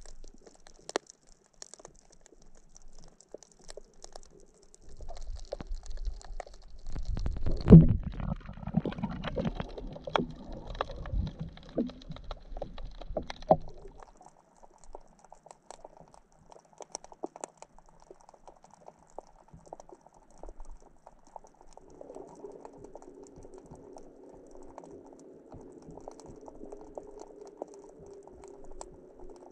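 Underwater sound picked up by a camera over a rocky reef: scattered sharp clicks and crackles, with a stretch of low rumbling water noise in the middle, loudest about eight seconds in. A faint steady drone sets in after about twenty-two seconds.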